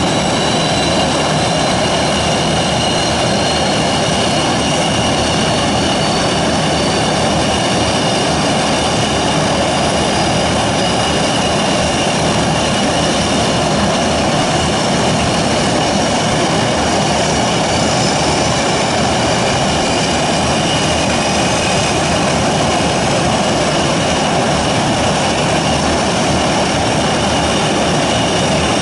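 Antonov An-22's four Kuznetsov NK-12MA turboprops running steadily with their contra-rotating eight-blade propellers turning, a loud, even drone under a high turbine whine.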